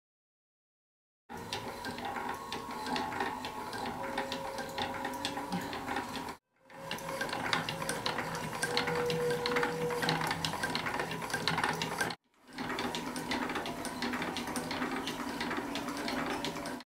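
Hand-cranked wooden automaton turning: its wooden crank, cams, shafts and followers clicking and rattling steadily. It comes in three stretches, broken by two brief silences.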